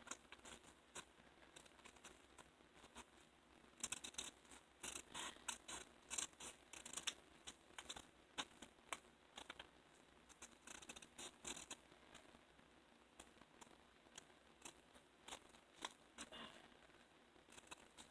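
Scissors snipping through paper in short irregular runs of cuts, the busiest stretch a few seconds in.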